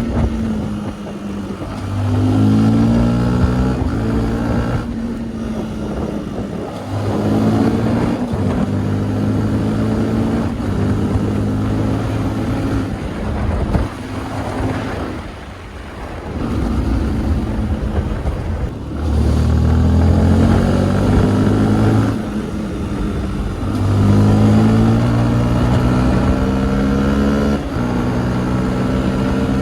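Fantic XMF 125's four-stroke single-cylinder engine pulling hard up through the gears, its pitch climbing and dropping back at each upshift, easing off briefly around the middle before accelerating again.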